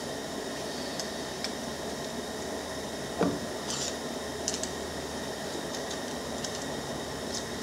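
Small clicks and taps of metal parts being handled while the brushes of a snow plow's DC pump motor are worked onto its bearing and armature, with one sharper knock about three seconds in, over a steady background noise.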